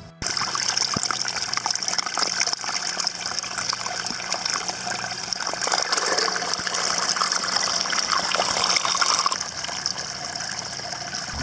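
Water of a small rocky garden creek running and trickling over stones, a steady splashing hiss that turns a little quieter near the end.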